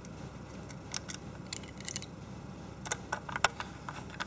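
Scattered small clicks and taps of hands working on small laptop hardware parts, a few bunched together past the middle, over a faint steady low hum.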